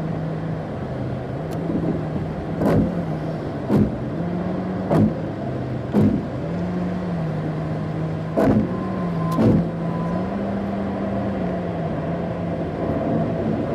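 Road and engine noise inside a car cruising on a highway, under a low hum that shifts slightly in pitch. Sharp thumps come about a second apart, four in a row and then two more later.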